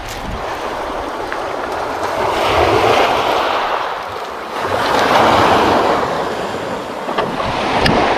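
Sea waves washing onto a pebble beach, a steady rush that swells twice, about two and a half and five seconds in.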